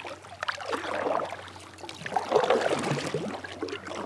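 Kayak paddle strokes: the blade dipping and pulling through calm water, with water dripping and splashing off it. There are two strokes, about two seconds apart.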